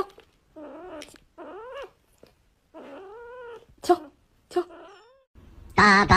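Young kitten mewing four times, drawn-out mews while it is bottle-fed, with a few sharp clicks between them. Music starts near the end.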